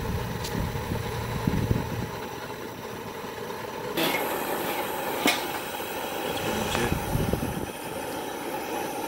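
Propane wok burner running under a tipped carbon-steel wok while its oil burns off, with wind rumbling on the microphone. There are a few sharp knocks, the loudest about five seconds in.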